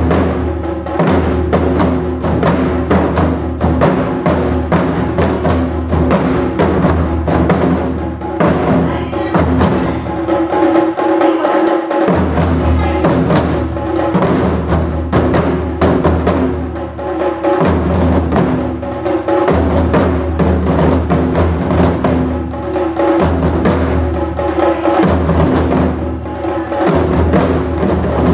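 Modern-style taiko drum music: fast, steady drum strikes played over a held low bass line, with no shouted calls (kakegoe). The bass drops out briefly about halfway through.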